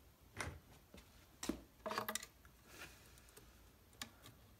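A few faint, scattered clicks and taps as hands handle thin wires at a plastic duck decoy.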